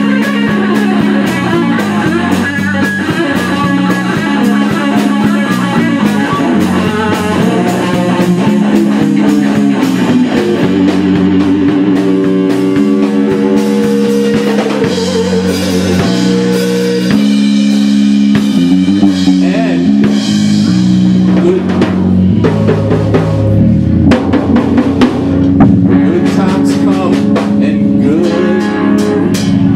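Live rock band playing: electric guitar, bass guitar and a drum kit keeping a steady beat.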